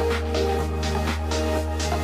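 Background music: an electronic track with a steady beat, a held bass and sustained synth notes.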